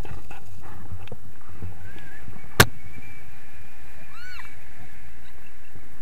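Wind rushing over the camera microphone of a tandem paraglider in flight, a steady low rumble. About halfway through there is one sharp, loud click, and a little later a brief high tone that rises and falls.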